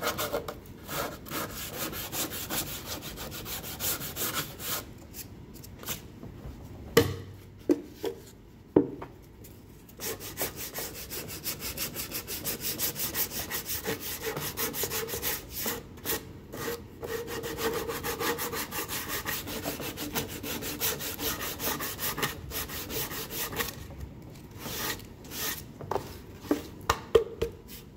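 Sandpaper rubbed by hand over the edges of pine boards in quick back-and-forth strokes, a dry rasping scrape. The sanding stops briefly a fifth of the way in and again near the end, with a few sharp knocks in those gaps.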